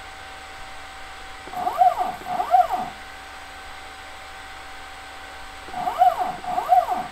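Stepper motor on a CNC router jogging the spindle axis in short 1 mm moves. Each move is a brief whine that rises and then falls in pitch as the motor speeds up and slows down. There are two moves back to back about a second and a half in and two more near the end, over a faint steady tone.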